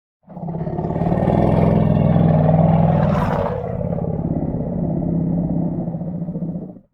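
Monster growl sound effect: a long, low, rough growl with a rapid flutter, a breathy rasp swelling a little past halfway, fading out near the end.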